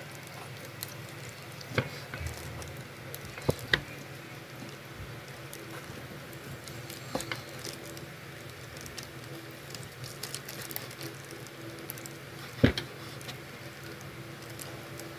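Kitchen knife slicing through steamed pork belly and knocking on a wooden cutting board: a few sharp taps spread through, two in quick succession about three and a half seconds in and the loudest near the end, over a faint steady hum.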